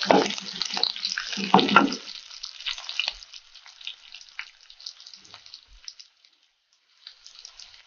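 Onions, green chillies, fenugreek and pandan leaves frying in hot coconut oil in a clay pot, a dense crackling sizzle while a ladle stirs them. The crackle is strongest in the first two seconds, thins out, and drops away for under a second near the end before coming back faintly.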